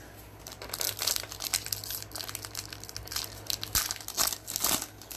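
Gloved hands handling hockey trading cards and their foil pack wrappers, giving an irregular, rapid crinkling and crackling.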